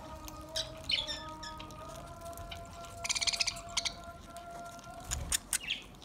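Budgerigars chirping: a couple of short chirps about a second in, a rapid chattering trill around the middle and another chirp near the end, with a few sharp clicks. A steady drone of held tones runs underneath.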